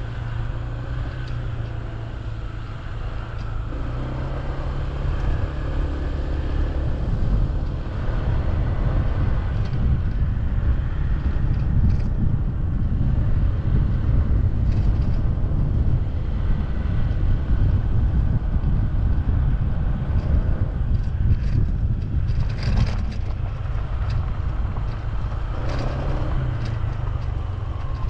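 Honda ADV150 scooter's single-cylinder engine running under way on a dirt track, with heavy wind rumble on the microphone; the engine picks up about four seconds in. A few sharp knocks from bumps in the track come near the end.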